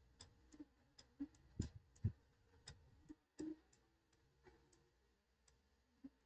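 Faint, irregular clicks and taps from handwriting strokes on a computer drawing screen, about fifteen of them, closely spaced for the first few seconds and then sparser, with one more near the end.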